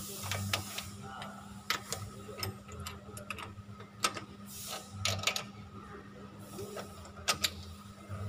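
Ratchet socket wrench clicking in irregular runs as car wheel nuts are snugged up by hand, with the odd metal clink of socket on nut, over a faint steady hum. The nuts are being run down tight before the car is lowered for final torquing.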